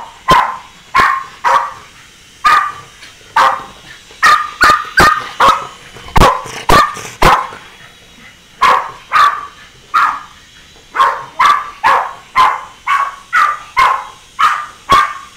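Small long-haired dog barking over and over in quick, uneven runs, worked up by a plastic toy helicopter flying around it. The barks are sharp and high, with a short pause about halfway through.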